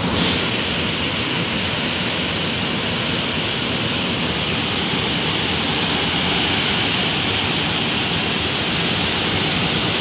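Loud, steady rush of water pouring at great force through the open spillway gates of Chandil Dam on the Subarnarekha River and churning into the river below.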